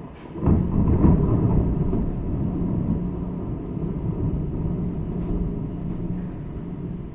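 Thunder: a loud low rumble breaks out suddenly about half a second in and slowly fades over the next several seconds, over a steady low hum.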